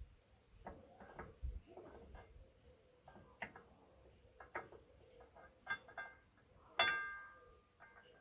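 Light metallic clicks and taps of tools and disc brake parts being handled, then one sharper metal strike about seven seconds in that rings for about a second.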